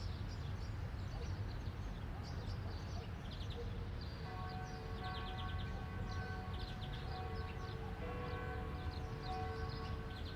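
Birds chirping in repeated short trills over a steady low rumble. From about four seconds in, several steady held tones join and shift about two-thirds of the way through.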